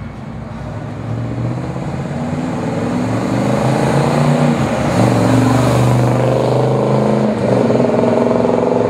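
A 1970 Chevelle SS 396's big-block V8 running through its dual exhaust as the car drives on the road, getting steadily louder for the first five seconds. The engine note dips and breaks briefly about seven seconds in, then carries on.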